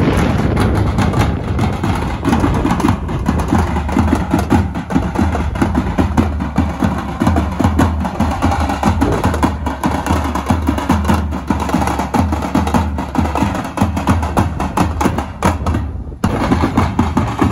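Several drums played together by a group: large shallow bass drums beaten with curved sticks and cylindrical side drums, in fast, dense, driving strokes with heavy low thumps. A brief break comes about sixteen seconds in, then the drumming goes on.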